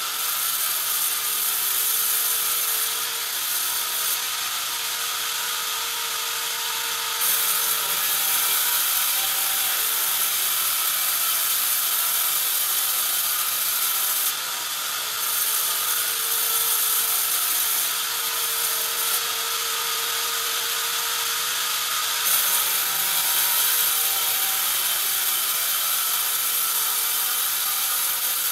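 Large log band saw running and cutting lengthwise through a log fed on its carriage: a steady hissing rasp of the blade through wood. The hiss swells and eases a few times as the cut goes on.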